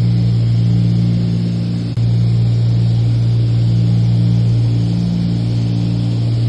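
Small propeller airplane's engine droning steadily in flight, heard from inside the cabin, with a slow beating in the hum and a brief break about two seconds in.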